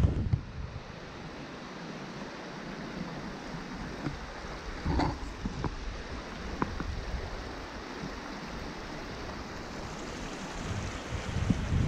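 Steady rush of water from the partly frozen Njupeskär waterfall and the stream below it, with a single short knock about five seconds in.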